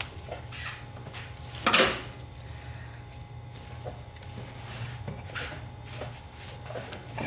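Cloth rag wiping and rubbing on a metal surface, with scattered light knocks and clinks of hands working around the parts, and a louder rustling scrape about two seconds in. A steady low hum underneath.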